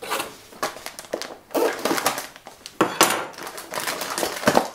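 A small cardboard toy-set box being handled and opened: cardboard scraping and rustling, with several sharp clicks, the loudest about three seconds in.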